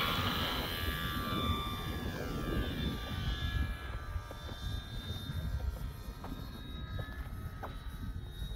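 Electric RC warbird's brushless motor and three-blade propeller whining, the pitch falling over the first few seconds before it fades to a faint steady hum. Wind rumbles on the microphone throughout.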